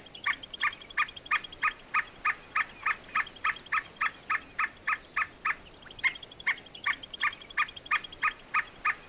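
A bird calling: a long, even series of short notes, about three a second, each with a lower and a higher pitch, broken by a brief pause about halfway through.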